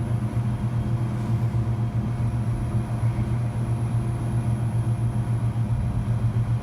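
Steady low machine hum with a faint high-pitched whine over it, unchanging throughout.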